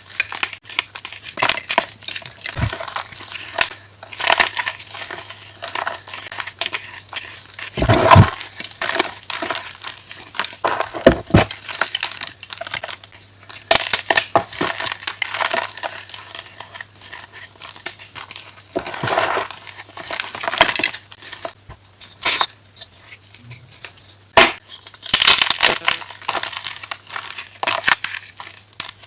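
Fresh blocks of chalk crunching and crumbling in irregular runs of sharp crackles, with several louder crunches spread through.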